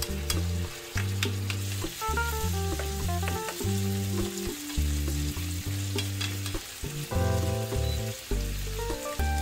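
Thin-sliced pork belly, onion and chilli sizzling as they stir-fry in soy sauce in a nonstick frying pan, with a wooden spoon scraping and stirring them. Light background music plays underneath.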